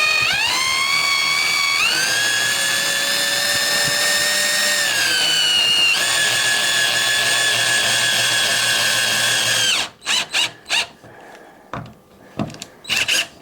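Power drill running under load for about ten seconds. Its whine climbs as it spins up, steps higher about two seconds in, dips around five to six seconds, then holds steady until it stops abruptly. A few sharp clicks and knocks follow near the end.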